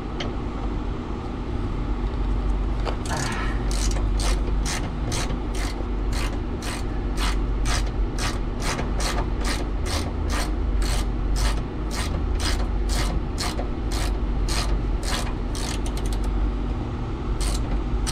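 Socket ratchet clicking as a 12 mm bolt is backed out from under the rear of a Subaru STI, a steady run of clicks about two or three a second. The clicks pause briefly near the end and then start again.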